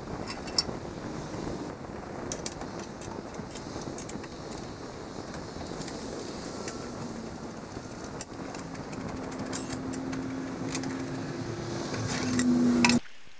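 Fast-forwarded sounds of hand tools and metal parts being worked on a garden tractor: many quick clicks and clinks over a steady hiss, getting louder near the end, then cutting off suddenly.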